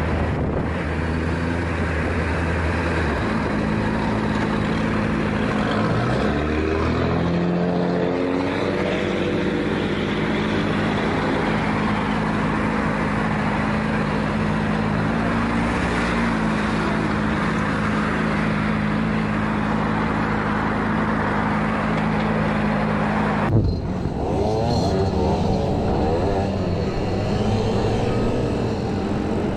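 Motorcycle engine heard from the rider's helmet camera over steady wind rush. About six seconds in it revs up with a rising pitch, then holds a steady note. Near the end the sound cuts abruptly to another motorcycle with a wavering engine note.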